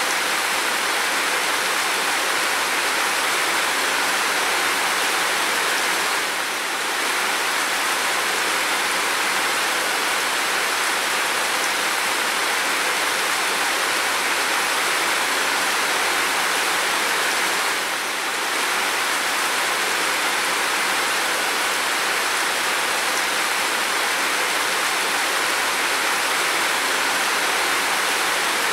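Steady rain falling on a window and roof, an even hiss that dips slightly about six seconds in and again about eighteen seconds in.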